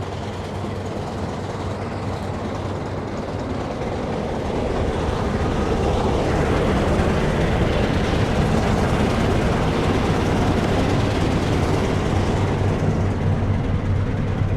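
Combine harvester running while cutting wheat: a steady drone of engine and threshing machinery that gets louder about four seconds in.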